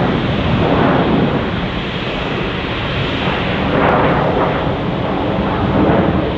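Airbus A330's two jet engines at takeoff power during the climb-out: a loud, rough rushing noise that swells about a second in, around four seconds and again near the end.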